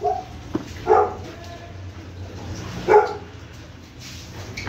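Dog barking: two single short barks about two seconds apart, with a sharp click shortly before the first.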